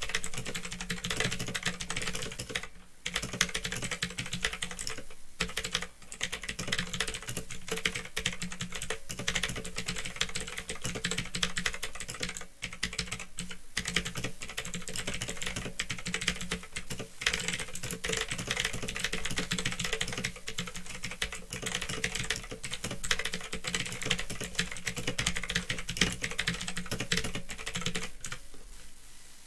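Fast, continuous typing on a Phantom Tecware 87 mechanical keyboard with clicky Otemu Blue switches: a dense stream of key clicks with a few brief pauses, over a steady low hum.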